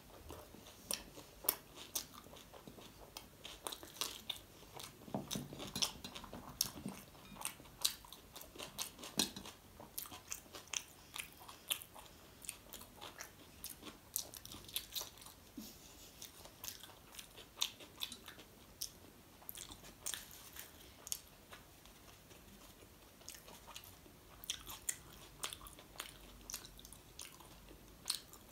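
Close-miked chewing and biting of chole bhature, the fried bhatura bread and chickpea curry eaten by hand, with many irregular wet mouth clicks and smacks.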